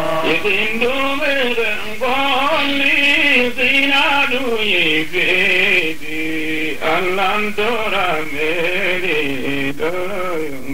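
A voice singing a wavering, ornamented melodic line over a steady held drone.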